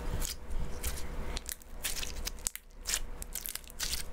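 Clear jelly slime squeezed and folded in the hands, its trapped air pockets popping in rapid, irregular crackling clicks.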